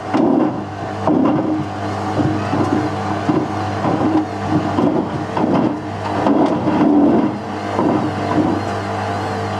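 Whirlpool washing machine drum turning with a brick inside: the motor hums steadily while the brick knocks against the drum about every half second to a second, less often near the end.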